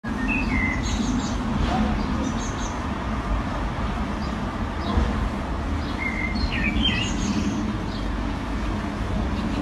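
Short bird chirps, a few near the start and a cluster about six to seven seconds in, over a steady low rumble.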